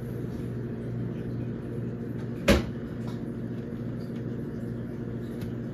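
A steady low hum, with one sharp knock about halfway through.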